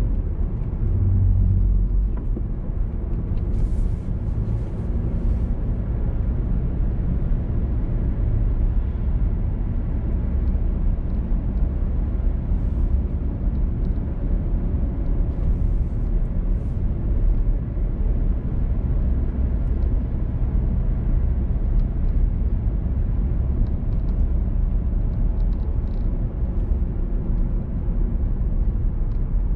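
A car driving along: a steady low rumble of road and engine noise, with a few faint ticks.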